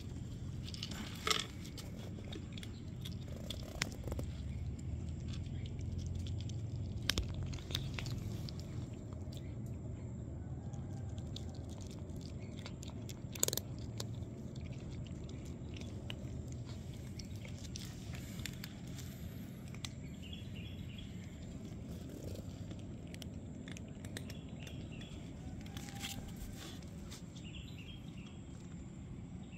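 Cats eating dry kibble: crunching and chewing, with scattered sharp crunches over a steady low background rumble.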